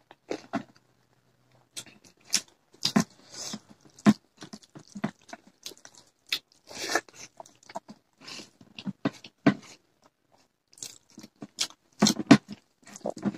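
Close-miked chewing and mouth smacks of people eating rice by hand: a scatter of irregular wet clicks and short bites, with a louder cluster of bites near the end.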